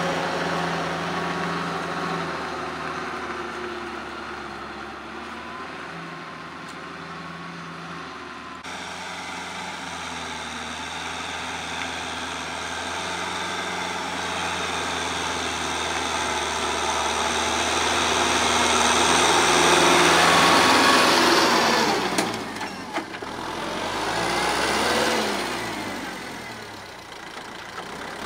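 Kubota M6040 tractor's diesel engine running steadily while it pulls a rotary tiller through wet paddy soil. It grows fainter as the tractor moves off, then louder again as it comes back and passes close.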